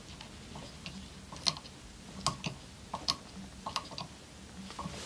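Light, irregular clicks and ticks, about a dozen in all, as tying thread is wrapped in figure-eights around lead dumbbell eyes on a jig hook held in a fly-tying vise.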